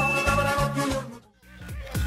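Funky electronic dance music with a bass line and beat, cutting out briefly about one and a half seconds in and then coming back.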